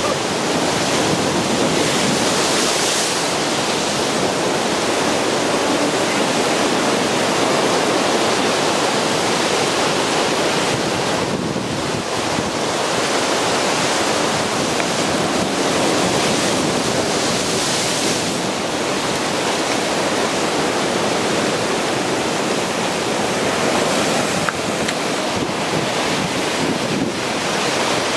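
Heavy ocean surf crashing and washing over lava rocks: a continuous rushing noise that swells and eases with each incoming wave.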